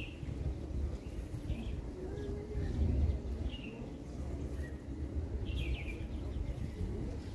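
Wind rumbling on the microphone, with a few short bird chirps scattered through it.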